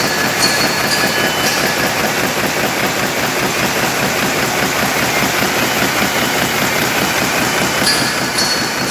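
Polystar RH wicketer plastic bag-making machine running with a steady, fast mechanical clatter.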